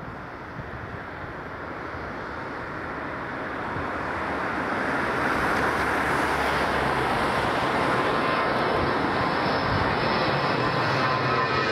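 Avro RJ100 four-engine turbofan jet at take-off power, its engine roar growing steadily louder over the first few seconds as it approaches, then holding loud. A thin high engine whine comes through over the roar near the end.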